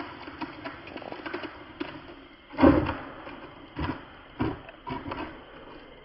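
Small RC cars knocking and clattering on dirt as a Traxxas Slash drags a towed toy car that tumbles behind it: a few irregular thumps, the loudest about two and a half seconds in.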